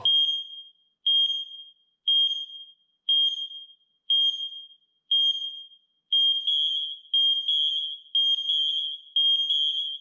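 X-Sense wireless smoke alarms sounding on test: loud, high-pitched beeps at one pitch, about one a second. From about six seconds in, the beeps come in overlapping pairs and threes as more than one interlinked alarm sounds out of step.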